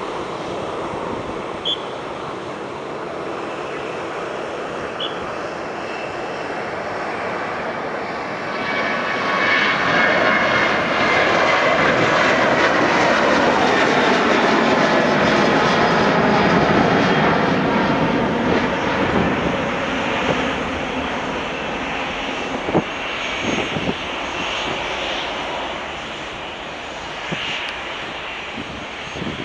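Boeing 737-700's CFM56-7B turbofans at takeoff power as the jet rolls, lifts off and climbs out overhead. The roar swells about ten seconds in and stays loudest for several seconds, its pitch falling as the jet passes, then fades as it flies away.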